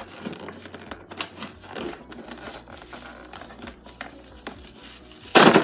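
Slime kit packaging being handled and opened: scattered crinkling and rustling, with one loud, short tearing rasp near the end.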